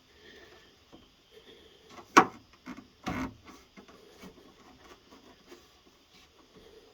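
Light clicks and taps of a screwdriver and the rubber window gasket being worked into a truck door's window frame, with one sharp click about two seconds in and a softer knock about a second later.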